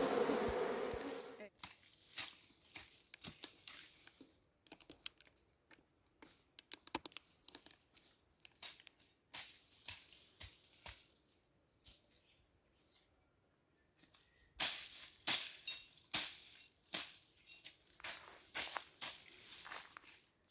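Honeybees buzzing at the hive entrance for about the first second and a half, then stopping abruptly. After that come irregular short crackles and rustles.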